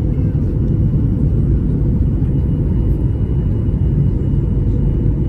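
Steady low roar of an airliner's passenger cabin on its landing approach: engine and airflow noise heard from inside, with a faint steady hum on top.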